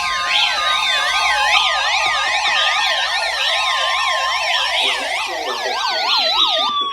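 Several electronic sirens sounding at once, each warbling rapidly up and down at a different pitch, with a few slower tones gliding steadily downward; the sound drops away just before the end.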